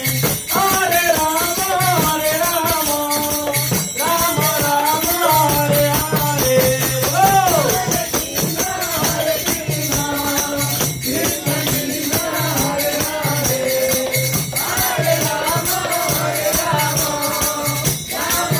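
Devotional kirtan: a man sings a chant through a microphone and loudspeaker, accompanied by a mridanga drum and jingling hand cymbals keeping a steady beat.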